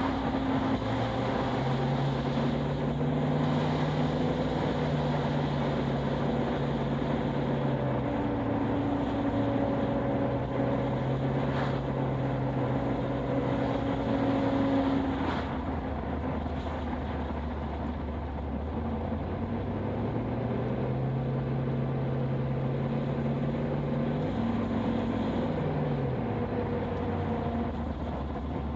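Car engine heard from inside the cabin, its note holding steady and then falling and climbing in steps as the driver eases off and picks up speed, over steady road and wind noise.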